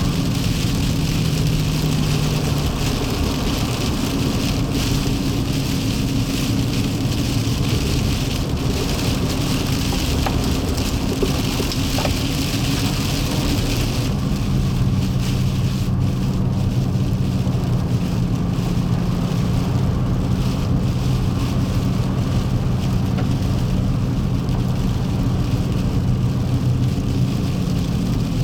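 Vehicle driving on a wet, slushy road: steady engine and road rumble with tyres hissing through the wet surface, the hiss falling away about halfway through.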